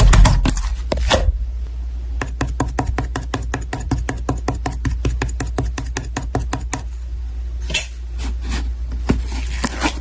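Slime being squeezed and poked by hand, making a fast run of crackling clicks and pops, more irregular near the start and the end.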